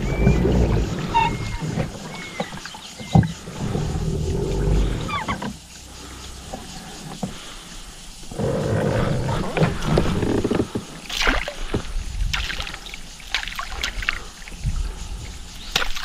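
Wind rumbling on the microphone of a fishing kayak, with water sounds against the hull and scattered clicks and knocks, most of them in the second half.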